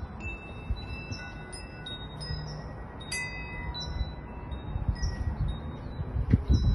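Chimes ringing at random: several high clear tones, each struck and left to ring out, overlapping, over a low rumble. A few low thumps come near the end.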